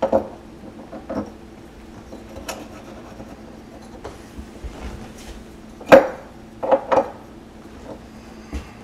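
Scattered knocks and light rubbing as a metal sink basket strainer is set into the drain hole and pressed down on its bead of silicone. The loudest clunk comes about six seconds in, followed by two more close together.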